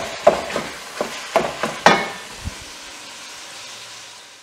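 Ground beef sizzling as it browns in an enamelled cast-iron pot, stirred with a wooden spoon that knocks against the pot several times in the first two seconds. The sizzle then runs on steadily and fades toward the end.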